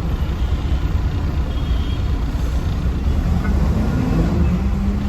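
Steady low rumble of a road vehicle's engine and road noise in slow traffic.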